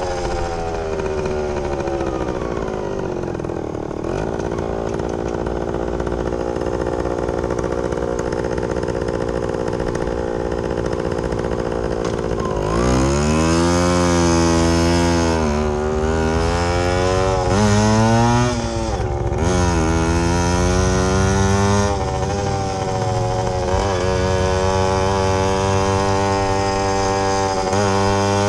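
Yamaha YG5T Trailmaster motorcycle's small two-stroke single-cylinder engine under way. Its pitch falls as the bike slows over the first few seconds, then holds steady. About halfway through it revs up through the gears, with the pitch dropping at each shift, and it settles into a steady cruise near the end.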